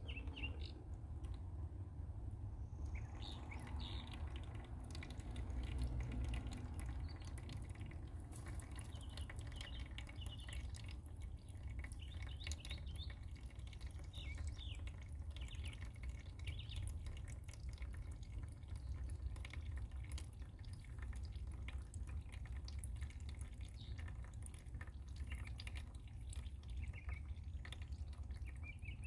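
Liquid dripping from a compost bin's green drain spout into a plastic tub that already holds liquid.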